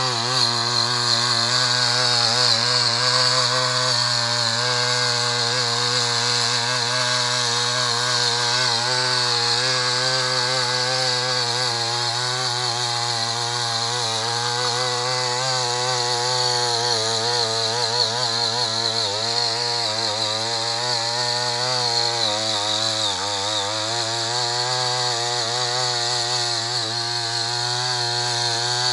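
Ching Yee CY50M-AJT52 mini tiller's 52cc two-stroke engine running under load as its rotary tines dig through soil and stubble. The engine note wavers as the tines bite, with one brief dip in speed about two-thirds of the way through.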